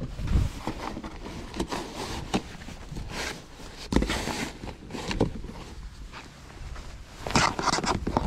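Gear being handled by hand: irregular knocks, scrapes and rustling, with one sharp knock about halfway through and a louder spell of rustling near the end.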